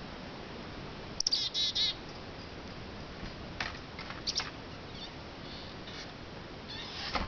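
Black-capped chickadees calling at the feeders: a quick run of several notes about a second in, like a chick-a-dee-dee call, then scattered short high chirps. A brief, sharp noise comes near the end.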